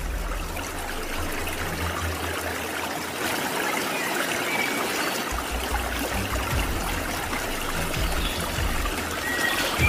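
Fast-flowing river rushing over rocks: a steady wash of whitewater.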